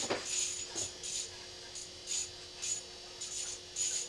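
Fishing reel being cranked in short, uneven spurts, a rasping whir about once or twice a second, as a hooked fish is reeled in.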